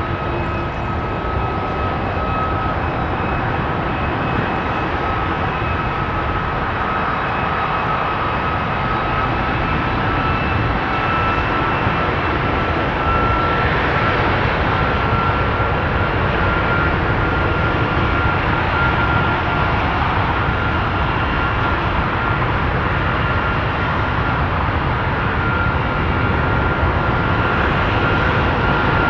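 Boeing 757-200 freighter's jet engines running during a ground engine test: a steady rushing noise with a high whine. The whine creeps slowly upward in pitch as the level grows.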